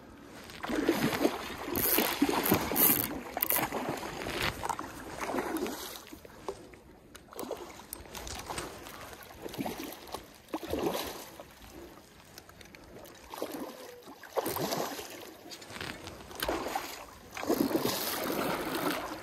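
Stream water splashing and sloshing in irregular bursts while a hooked king salmon is fought on a spinning rod, with a splash from the fish at the surface near the end.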